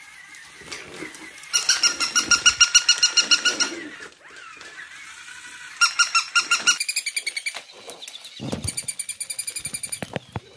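Squeaker in a plush dog toy squeaking in quick runs of about five squeaks a second, with short pauses between runs, as a French bulldog chews it.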